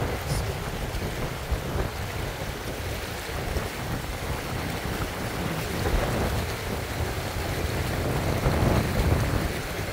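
Steady rumble of wind buffeting the microphone, mixed with the wash of moving water, swelling a little twice in the second half.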